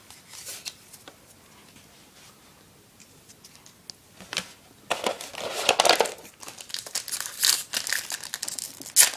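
Foil booster-pack wrapper crinkling and tearing as a trading-card pack is opened, with a few light rustles first and then steady crackling from about five seconds in.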